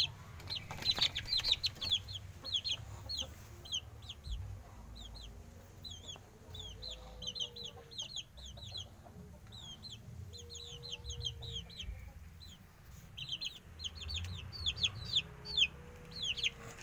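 Young Saigon × Pama crossbred chicks peeping: many short, high, falling chirps, several a second, busiest at the start and again near the end.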